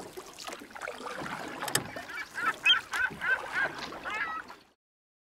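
Water and boat noise with a run of about eight short, repeated waterbird calls from about two seconds in. The sound cuts off suddenly near the end.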